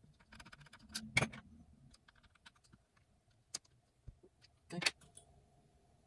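Small Phillips screwdriver driving tiny screws into the optical-bay drive caddy of an opened MacBook Pro: scattered light clicks and taps of the tool and screws on metal and plastic, the loudest about a second in and again near five seconds.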